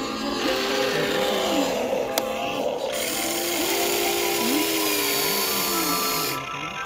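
Electric motors of a Huina radio-controlled toy excavator whining as the arm and bucket dig, the pitch rising and falling in arcs as each motor speeds up and slows.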